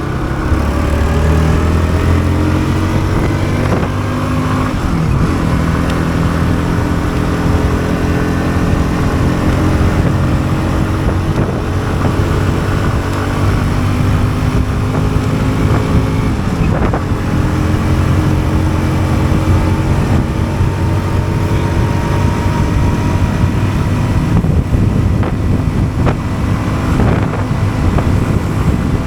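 Bajaj Pulsar NS160's single-cylinder engine accelerating on the road, rising in pitch over the first few seconds, then running at a fairly steady cruising speed with small rises and dips in pitch.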